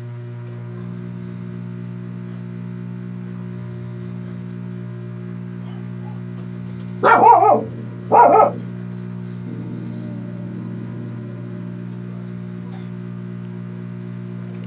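A dog barking twice in quick succession, about seven and eight seconds in, over a steady electrical hum.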